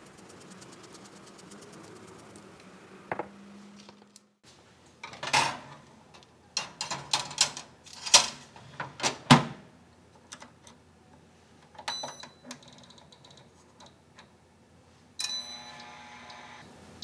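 Metal baking tray clattering onto the rack of a BALMUDA The Toaster Pro and the oven door shutting, a cluster of sharp clacks and knocks in the middle. About twelve seconds in, a quick run of clicks as the timer dial is turned, then an electronic tone from the toaster near the end as it starts baking.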